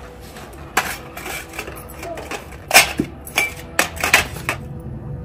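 Glass tea cups and a steel serving tray clinking and knocking together as the tray is set down, a short irregular run of sharp clinks.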